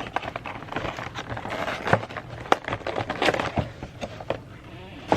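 Packaging being handled and unwrapped, rustling and crinkling with irregular sharp clicks and taps, busiest in the middle.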